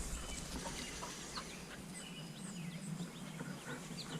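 Faint birds chirping, short scattered calls over a quiet background.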